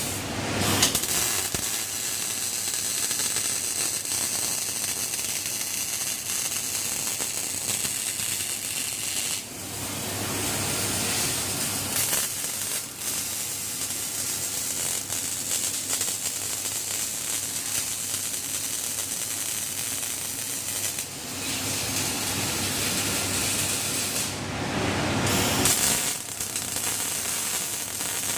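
Welding robot's arc crackling and hissing steadily as it lays weld beads on steel rectangular pipe, with a few short breaks and changes in the noise.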